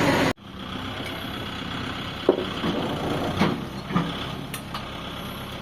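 Farm machinery engine running loud and close, cut off abruptly a moment in. A fainter, steady engine hum follows, with a few short, sharp knocks or calls in the middle.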